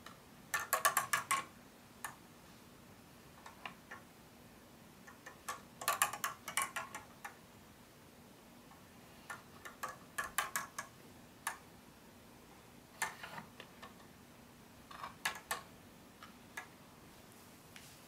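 LEGO plastic parts clicking as a hand-cranked model of a Leibniz stepped drum turns, its stepped teeth catching the small gear on the counting shaft. The clicks come in about five bursts of quick ticks a few seconds apart, with single clicks in between.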